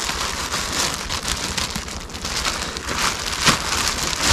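Leaves and twigs rustling and crackling as someone pushes through dense brush, a steady run of small snaps with a sharper snap about three and a half seconds in.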